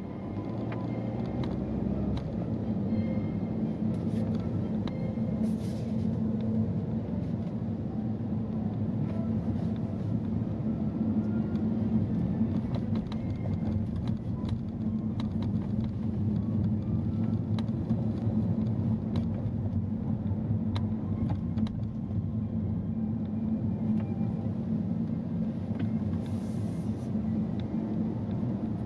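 A car being driven, with a steady low engine and tyre rumble that grows a little louder about two seconds in.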